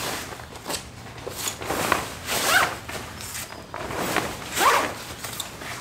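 Zipper on a tent vestibule's pole sleeve being pulled closed in several short strokes, with the tent fabric rustling.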